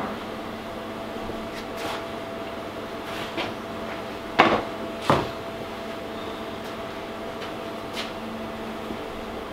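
Two sharp knocks about half a second apart near the middle, with a few lighter clicks, over a steady electrical hum: hard items being handled and set down while toggle clamps are fitted.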